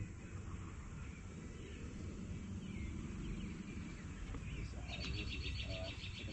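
Outdoor ambience: a steady low rumble with faint scattered bird chirps, and a fast high trill repeating several times a second that starts about five seconds in.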